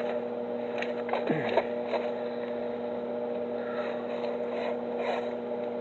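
Arc welder humming steadily at idle with no arc struck, with a few faint knocks.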